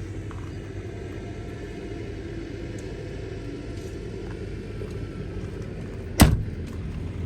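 New Holland B95 loader backhoe's diesel engine running steadily, with a single loud sharp clank about six seconds in.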